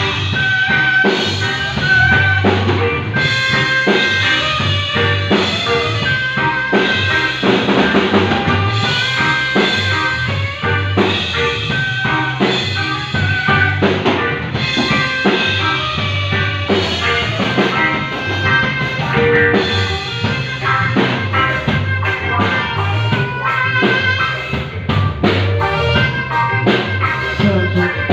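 A band playing a song, with a drum kit keeping a steady beat of kick drum, snare and rimshots under the other instruments.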